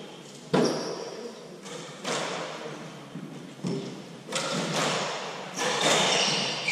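Hardball doubles squash rally: the hard ball struck by rackets and smacking off the court walls, sharp impacts about once a second, each with a short echo.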